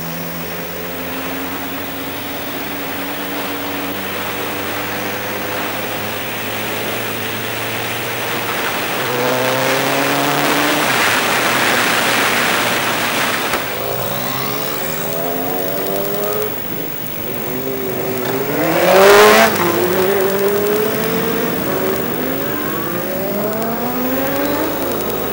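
Motorcycle engine under way, heard from a camera on the bike with wind rushing past. The engine note climbs slowly and steadily at first. After about halfway it climbs through several quicker rises as the bike goes up through the gears. A loud burst of wind noise comes about three quarters of the way through.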